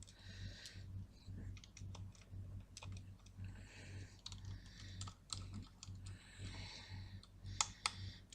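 Faint clicking and ticking of a small screwdriver turning screws into a hard drive's metal case cover, with two sharper clicks near the end.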